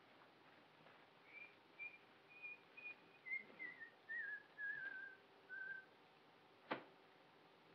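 A man whistling a short tune: a run of about ten brief notes that step downward in pitch, some with a slight warble. A single sharp click follows near the end.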